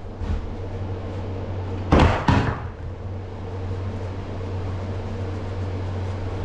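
A push broom knocks twice in quick succession about two seconds in as it is jabbed into a corner against the wall and floor. A steady low hum runs underneath.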